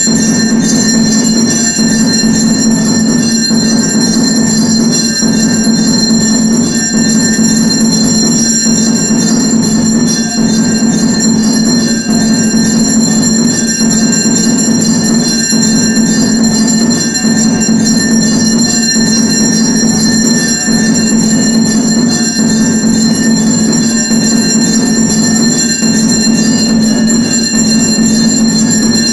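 Temple bells ringing continuously and rapidly during an aarti, the ringing held steady without dying away, over a steady low drone.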